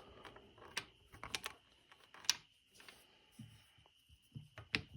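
Irregular small clicks and taps of a spark plug and its plug lead being handled and set against the outboard engine for a spark test, over a faint steady high whine.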